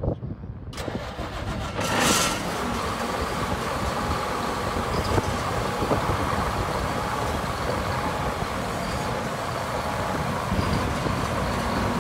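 Diesel engine of a large AGCO rubber-tracked tractor: it comes in about a second in, surges loudly near two seconds, then runs steadily.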